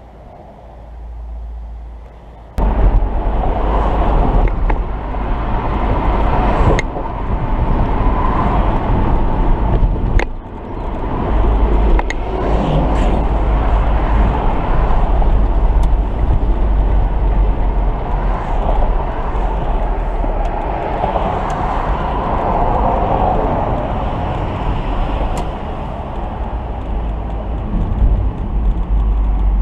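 Loud, steady vehicle rumble with wind noise, starting abruptly about two and a half seconds in and holding to the end, with a brief dip in the middle.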